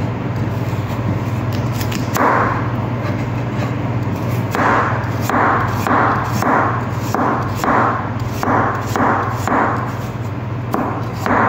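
Chef's knife slicing through raw carrots onto a cutting board: a run of short crunchy chops, about two a second, over a steady low hum.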